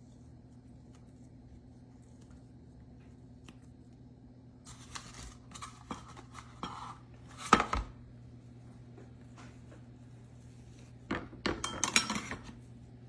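Kitchenware being handled: two spells of knocking and clinking of dishes and utensils, the loudest a sharp knock about seven and a half seconds in, over a faint steady hum.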